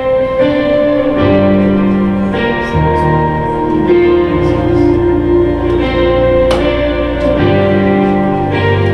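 Recorded worship song starting up: sustained guitar chords over a deep bass, with slow chord changes.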